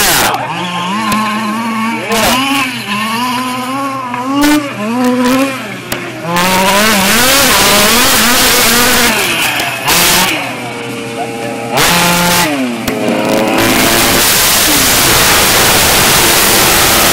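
A 1/5-scale RC trophy truck's engine revving up and down as it is driven hard, the pitch rising and falling over and over. Stretches of loud rushing noise cover it from about six seconds in and again near the end, with a few sudden thumps.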